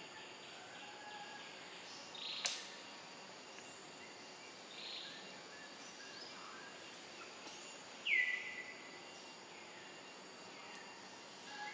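Quiet outdoor ambience: a steady hiss with scattered short, high chirps, a sharp click about two and a half seconds in, and a louder chirp falling in pitch about eight seconds in.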